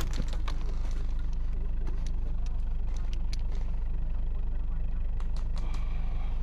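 Steady low hum of a vehicle engine idling, with a few faint clicks.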